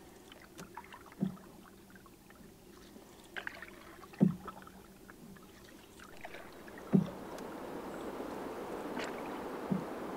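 Canoe paddling: four low thuds of paddle strokes, about three seconds apart, with lighter clicks between them. A steady hiss comes up about two-thirds of the way in.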